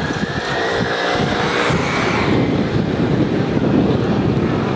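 City street traffic with motor scooters passing close: an engine drone whose whine rises slightly over the first two seconds and then fades into the general traffic noise, with wind rumbling on the microphone throughout.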